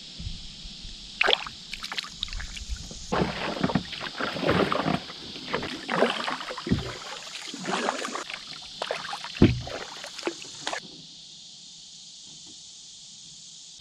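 Water splashing and dripping around a canoe, with knocks on the hull, as the canoe is worked along the pond. Near the end these stop, leaving only a steady faint hiss.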